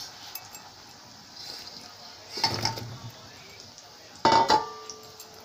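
Steel kitchen utensils clattering against a steel pot: a soft clatter about two and a half seconds in, then a loud metallic clank about four seconds in that rings on briefly.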